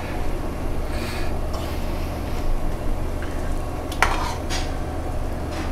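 A whisk stirring the egg-and-cheese carbonara cream in a stainless-steel bowl, with two sharp metal clinks about four seconds in. Under it, asparagus sizzles in hot fat in a frying pan on a gas burner, over a steady low hum.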